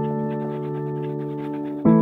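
Background music: slow, sustained keyboard chords, with a new chord struck near the end.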